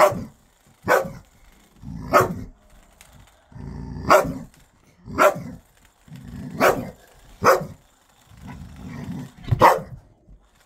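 A dog barking in single loud barks, eight of them at uneven gaps of one to two seconds, each led in by a low growl. It is play barking at a toy ball, not aggression.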